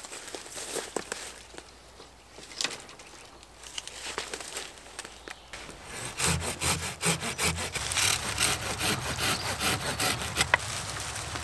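Footsteps and rustling through undergrowth, then from about six seconds in a folding pruning saw cutting through a green hazel stem in quick, even back-and-forth strokes.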